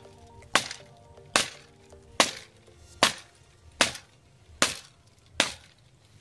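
Machete chopping dry branches: seven sharp strikes at an even pace, a little more than one a second. Quiet background music plays underneath.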